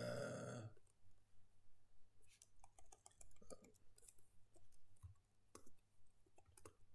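Faint, irregular clicks of computer keyboard keys being pressed, spread over a few seconds, after a short breathy noise at the very start.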